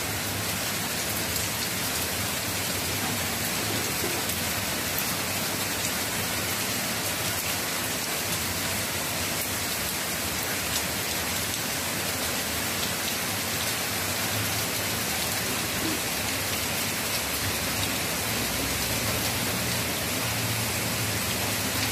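Heavy rain pouring steadily onto surfaces, a dense even hiss.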